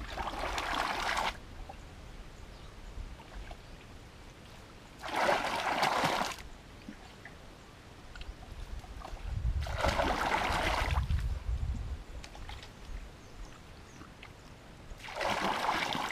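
Muddy pond water splashing and pouring in four bursts of a second or so, about every five seconds, as it is scooped up and thrown out with a bucket.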